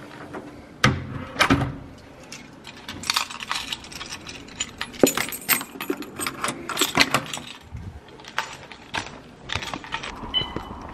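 Keys jangling and clinking, with irregular sharp clicks and knocks from a door's lever handle and lock as it is opened and shut.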